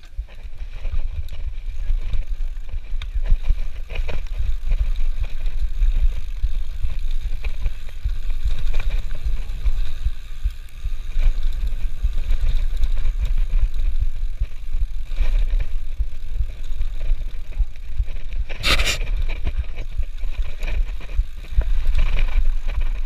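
Mountain bike rolling fast down a dirt trail, with a steady low rumble of wind on the microphone and the bike's tyres and frame rattling over the bumps. A single sharp knock comes about three-quarters of the way through.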